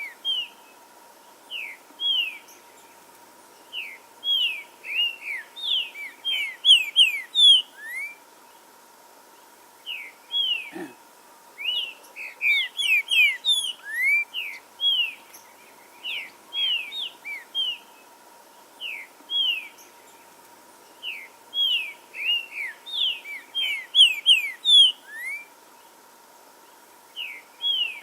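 Green-winged saltator (trinca-ferro) singing: phrases of quick, clear whistled notes, each sliding downward, repeated every few seconds with short pauses between them.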